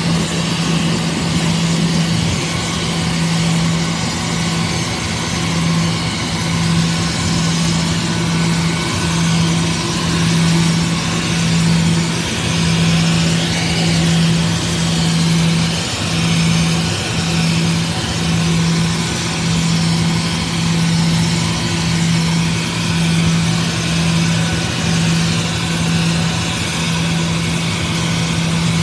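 Jet engines of a Surinam Airways Airbus airliner running at idle as it taxis slowly past. A steady loud drone, with a low hum that swells and fades about once a second.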